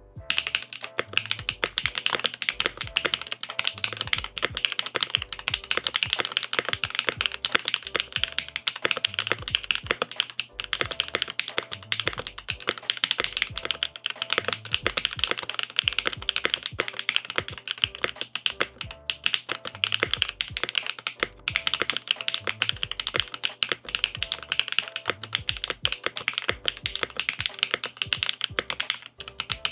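Continuous fast typing on a Cannon Keys Chimera 65 R2 mechanical keyboard with Kailh BCP switches, an aluminium plate, no foam and GMK doubleshot keycaps: a steady stream of key clicks and clacks. The typing starts right at the beginning.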